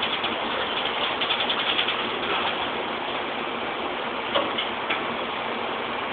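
Steady din of factory machinery, with a quick run of clicks about a second in and two single knocks around four to five seconds, as metal parts are handled at a workstation.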